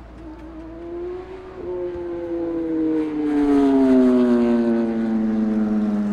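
A sportbike engine held at high revs passes by at speed. Its note steps up once, then slides steadily down in pitch as the bike goes past, loudest about four seconds in.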